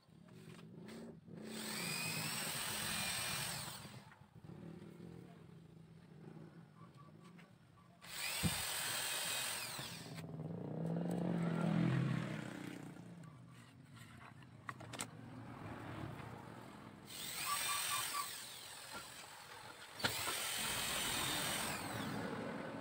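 Electric hand drill running in four short bursts of two to three seconds each, whirring up and winding down, as it bores small holes through bamboo frame joints for reinforcing pins.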